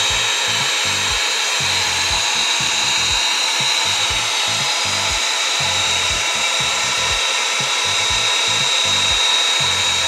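Minute Key self-service key-duplicating kiosk running with a steady motor whine and hiss, a constant high tone over it, as its spinning cutter works on a key copy.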